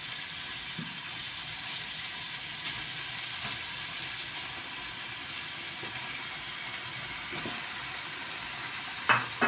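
Chilli spice paste sizzling steadily in a wok as raw chicken wings are added to it.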